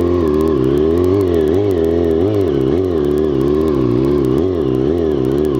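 Motorcycle engine under the rider's throttle, revving up and down in quick, even swells about twice a second as the bike is ridden in tight circles.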